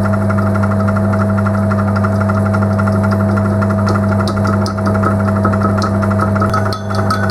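Homemade lathe running under its electric motor's steady hum, with the tool taking an intermittent facing cut on an aluminium faceplate casting that is not square to the spindle, so it chatters in a rapid pulse every turn. Near the end the casting starts to ring like a bell.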